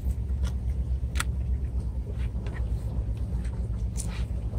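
Steady low rumble of wind buffeting the microphone, with a few faint clicks of a fillet knife cutting through a fish against a plastic cutting board.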